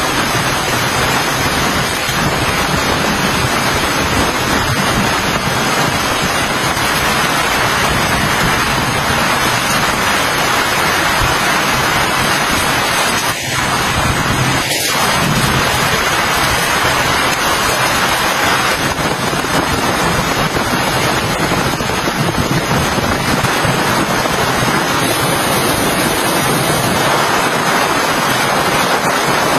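Heavy rain falling steadily, a dense, even hiss with no single drops standing out.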